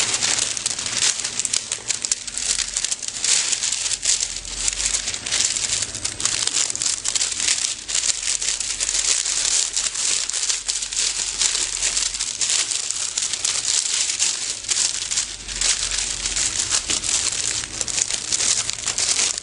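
Plastic shrink film crinkling and rustling continuously as books are pushed into and handled inside a tube of the film.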